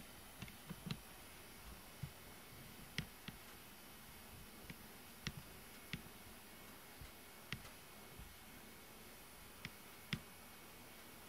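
Quiet room with about fifteen faint, sharp clicks and ticks at irregular intervals.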